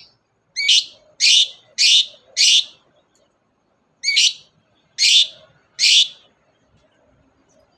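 Long-tailed shrike (cendet) giving harsh, rasping calls: four in quick succession, a pause of about a second and a half, then three more.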